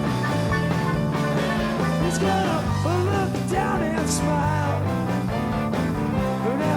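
Rock band playing with a singer: steady bass notes under a sung melody, with a few sharp cymbal-like hits.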